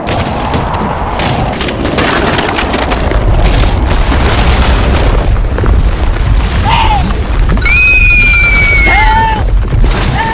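A loud, deep rumbling boom sound effect like an eruption, building about three seconds in. Near the end come several short, high-pitched squealing cries.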